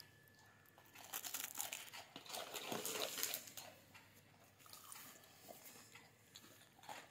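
Crisp crunching of a dry rusk biscuit being bitten and chewed, densest from about a second in to about four seconds in.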